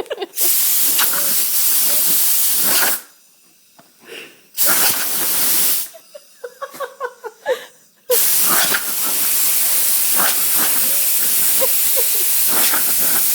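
Compressed air from an air compressor hissing out in three long blasts, stopping briefly twice, about three seconds in and about six seconds in. Short pitched cries come in the pauses, most in the second one.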